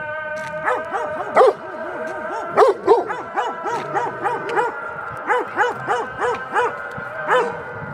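Kangal dog barking over and over in short, quick barks, several a second, with a steady high held tone underneath.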